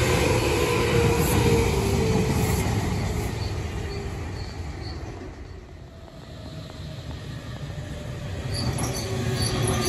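Meitetsu electric trains passing. The running noise of one train fades as it pulls away, dipping to its quietest about six seconds in, then grows louder as the next train approaches near the end.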